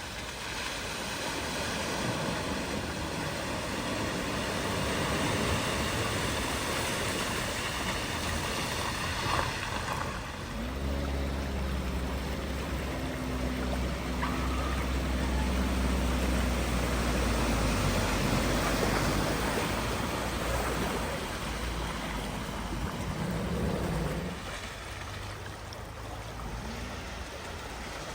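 Steady rush of floodwater running through a ford. Partway through, a vehicle's engine runs low and steady for several seconds, then fades.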